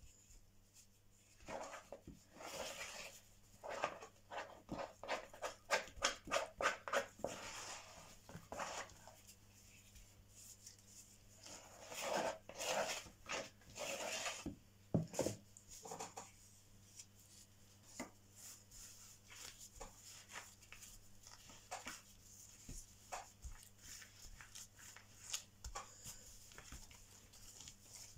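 A plastic spatula scraping crumbly dough out of a plastic mixing bowl in quick repeated strokes, in two busy spells in the first half. Softer rubbing and pressing follow as gloved hands roll the dough on a floured table.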